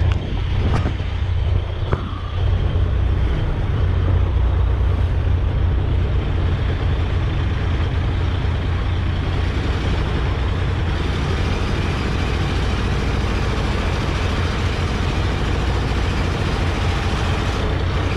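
Engine of a wooden boat under way, running steadily with a low drone over a constant rushing noise.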